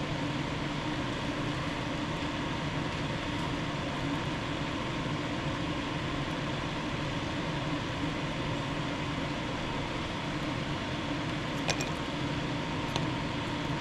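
Steady whirring hum of a fan or similar small machine, with a faint steady tone in it. Two light clicks come near the end.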